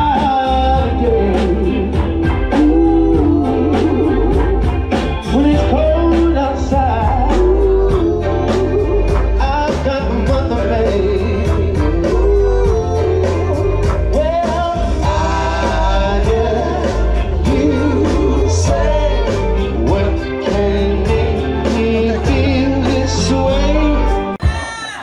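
A song with singing over a heavy bass line and a steady drum beat, dropping away just before the end.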